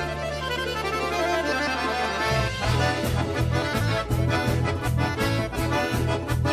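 Russian folk instrumental ensemble led by bayan (button accordion) with bass and drums playing: a held low chord for about two seconds, then the band drops into a steady driving beat.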